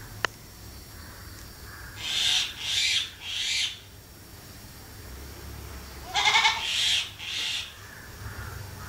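Goats bleating: a quick run of three hoarse, high bleats, then two more a few seconds later.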